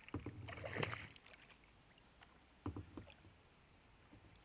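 A hooked Australian bass splashing and thrashing at the water's surface for about the first second. Then quieter, with a couple of short knocks near the middle.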